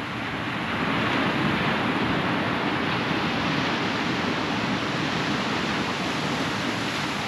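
Ocean wave breaking and washing up the shore, swelling about a second in and slowly fading away.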